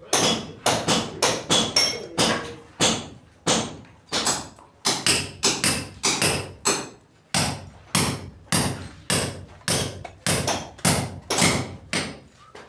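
Hammer blows struck repeatedly in quick, uneven succession, about two to three a second, each a sharp crack with a short ring.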